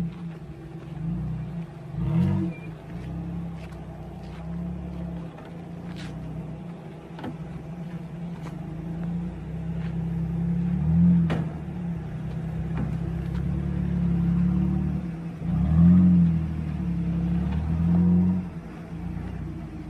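Off-road 4x4 engine running and revving in repeated surges, with a few sharp knocks.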